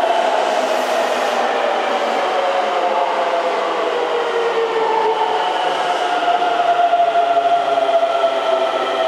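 Keikyu 1700-series electric train braking to a stop, its braking whine made of several tones that slide slowly down in pitch as it slows, over steady wheel and rail noise.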